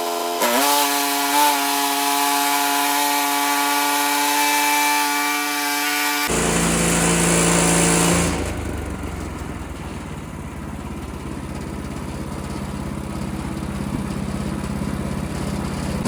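Portable bandsaw sawmill cutting a poplar log, its gas engine running under load with the blade rasping through the wood. About six seconds in the sound changes abruptly to a lower, quieter steady engine run.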